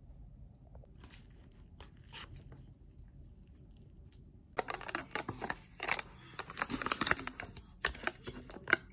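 Thin plastic film lid being peeled off a plastic dessert cup of almond tofu, a crinkling, tearing rustle that starts about halfway through, with a sharp snap near the end.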